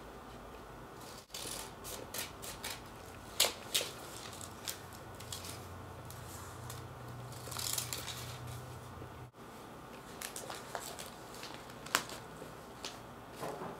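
Scissors snipping through newspaper coupon inserts, with paper rustling and crinkling as the sheets are handled: scattered sharp snips among softer shuffling.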